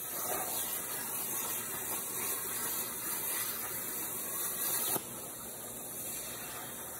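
CNC plasma cutter cutting steel plate: a steady loud hiss that cuts off sharply about five seconds in as the arc stops, leaving a quieter hiss of air still blowing through the torch.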